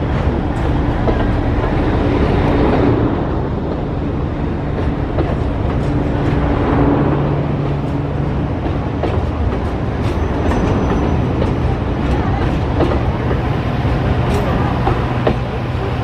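Diesel locomotive of the Alishan Forest Railway running close by, a steady low engine hum with tones that shift slightly in pitch.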